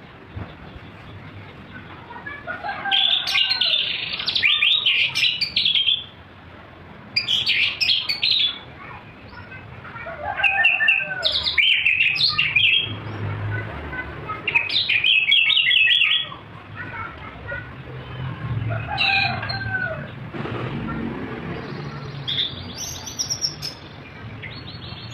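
Caged anis thrush singing: about six bursts of rapid, varied song phrases separated by short pauses.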